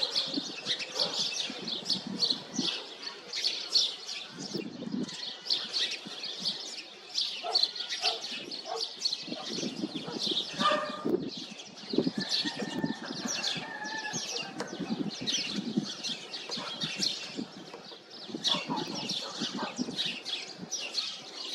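House sparrows chirping: a dense, unbroken run of rapid, overlapping short chirps, over a low background rumble.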